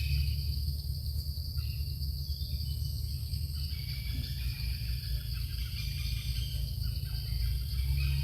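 Steady, high-pitched insect drone over a constant low rumble.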